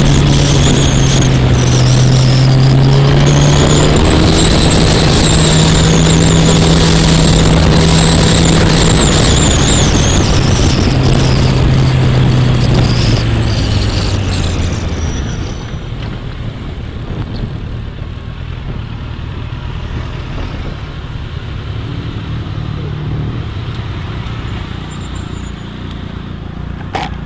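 Motorcycle engine running under way with heavy wind rush on the microphone, its note holding steady and then dropping. About halfway through the wind noise falls away as the bike slows, and the engine settles to a quieter low running sound as it rolls to a stop.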